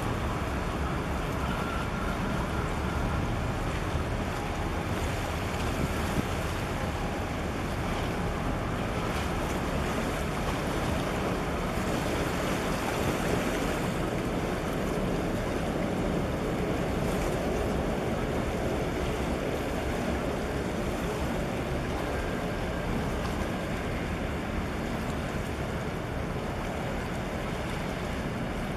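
Steady wind on the microphone over water washing against a breakwater, with a low rumble underneath and no distinct events.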